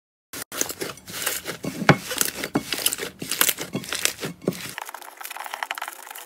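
Slime being squeezed and kneaded by hand, a dense run of sticky crackles and pops that starts suddenly just after the beginning. About three-quarters of the way through, the sound turns thinner but the crackling goes on.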